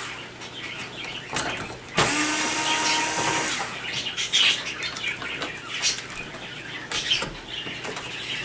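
Cordless drill-driver runs once for about a second and a half, backing out a screw that holds the TV's main board. Sharp clicks and small rattles from handling the screws and parts come before and after it.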